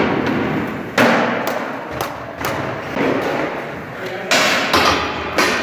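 Skateboards hitting a hard gym floor and wooden ramps: a string of sharp thuds and slaps, about one every half-second to second, echoing in a large hall.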